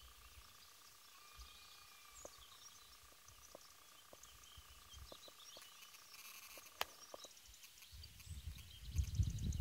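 Faint distant birdsong over a quiet open field, with a low rumbling noise building near the end.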